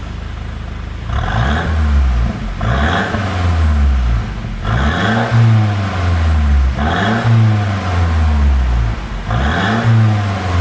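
Mercedes-Benz W213 E300's exhaust as the engine is blipped five times, about every two seconds, each rev rising and falling back. The car has a pop-and-bang tune, so it crackles as the revs drop.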